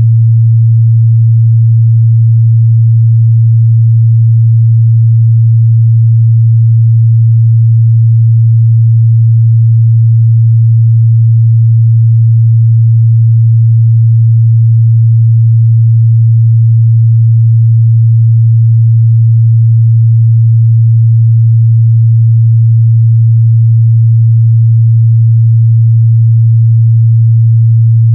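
A steady, unbroken 114 Hz sine-wave test tone, a low hum in the mid-bass, held at a constant loud level.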